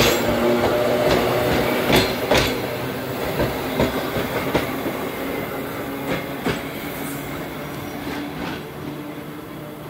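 ER2 electric multiple unit rolling past and pulling away: irregular wheel clicks over the rail joints over a steady hum, growing fainter as the train recedes.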